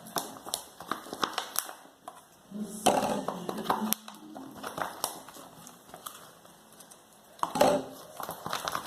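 Homemade slime mixed with shaving foam being stirred in a bowl, making irregular sticky crackles and small clicks. There is a brief low murmur a few seconds in and a louder burst of the same handling noise near the end.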